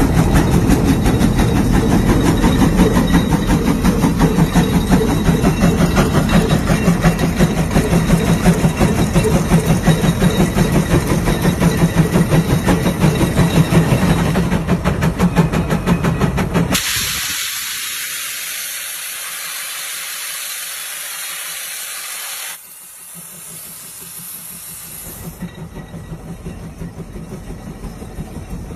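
Steam traction engine working hard under the load of a large plow, its exhaust chuffing in a fast, steady beat. About two-thirds of the way through the beat cuts out abruptly and a steady high hiss takes over for several seconds, then the sound drops to a quieter running noise.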